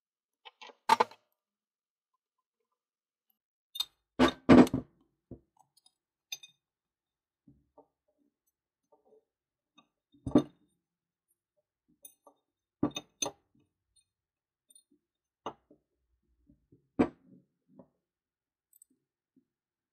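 Scattered sharp clicks and knocks at irregular intervals, the loudest a quick cluster of three about four seconds in.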